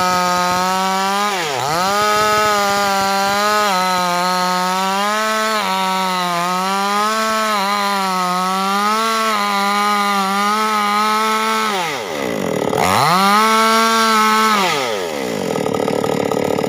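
Small two-stroke Proquip mini chainsaw running at high revs while ripping lengthwise through a large wooden beam, its engine pitch sagging and recovering as the chain bites. About twelve seconds in the revs drop sharply, climb back to full, then fall away toward idle near the end.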